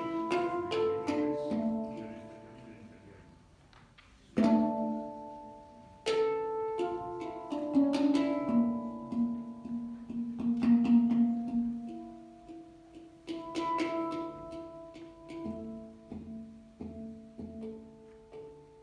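A hang (steel handpan) played with the hands: single struck notes and small clusters ring out and die away slowly, the sound falling almost quiet about four seconds in before firm strikes bring it back. The playing is busiest in the middle and thins out into softer, sparser notes toward the end.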